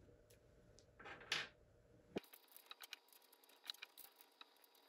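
Faint clicks and rustling of hands handling a handlebar clamp and its screws, with a short scrape about a second in.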